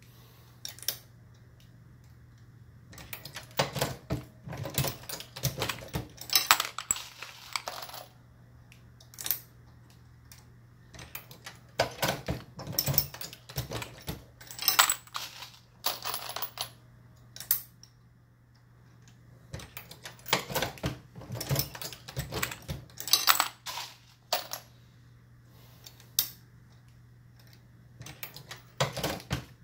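Dillon RL550B progressive reloading press being cycled while loading .223 rounds: metal clicks and clacks of the press stroke and shell plate, and brass cases clinking. The sound comes in bursts of several seconds with short pauses between them.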